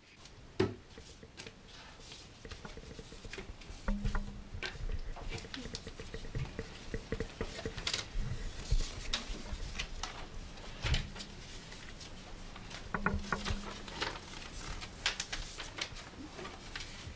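Paper ballot slips rustling and being handled, with scattered light taps and clicks.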